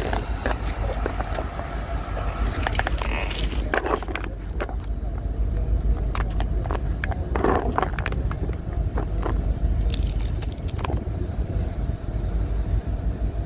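Union Pacific coal train rolling past: a steady low rumble with scattered, irregular knocks from the wheels and cars.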